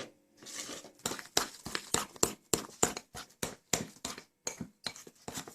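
A spoon stirring thick cake batter in a bowl: quick repeated strokes that click against the bowl, about three a second.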